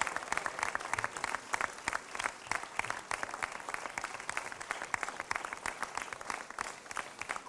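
Applause from many people, a dense, steady patter of hand claps.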